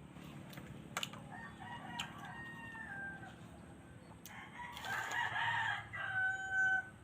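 Rooster crowing: a long call that turns loud and rough in the middle and ends on a held steady note, with a fainter call just before it. A few sharp clicks sound now and then.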